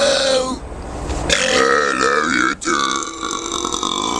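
Deliberate burping. One burp ends about half a second in, then a long, drawn-out burp begins after about a second, wavering in pitch and broken briefly by a sharp click partway through.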